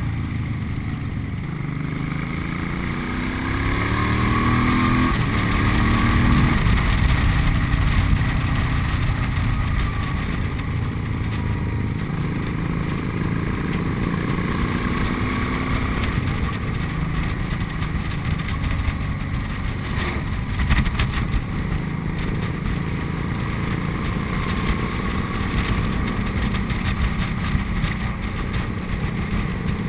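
Cruiser motorcycle engine heard from the bike carrying the camera, with wind rumble on the microphone. In the first six seconds the revs climb and drop back a few times as it shifts up through the gears, then it holds a steady note at road speed.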